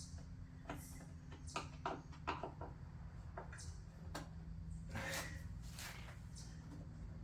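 Scattered clicks and scrapes of hand tools and metal and plastic parts being handled while taking apart an ATV, with a longer scrape about five seconds in, over a steady low hum.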